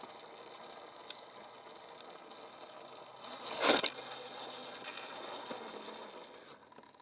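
RC crawler's electric motor and geared drivetrain whirring steadily, with a brief louder whoosh about three and a half seconds in; the whir fades out near the end.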